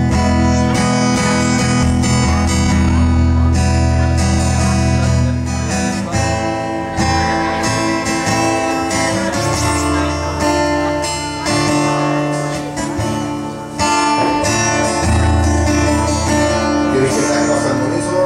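Acoustic guitar strummed and picked through a PA system, with deep held low notes underneath, changing chords every few seconds.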